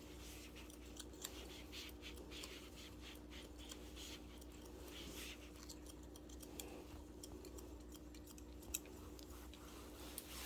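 Barber's long scissors snipping hair in quick, irregular snips, faint against a steady low hum.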